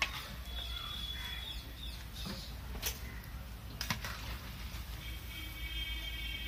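Batter-coated munthiri kothu balls deep-frying in a wide aluminium pan of hot oil, sizzling steadily, with a few sharp knocks of a metal slotted ladle against the pan. Bird calls sound faintly behind, about half a second in and again from about five seconds in.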